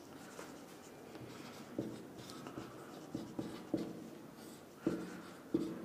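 Marker pen writing on a whiteboard: a series of short, quiet strokes and taps as letters are written.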